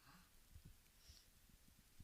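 Near silence: faint room tone with a few weak low thumps and soft clicks.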